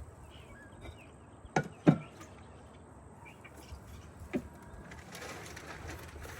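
Two knocks close together about two seconds in, the second the loudest, and a lighter knock a couple of seconds later, from things being handled and moved during garden cleanup. A rustling follows near the end.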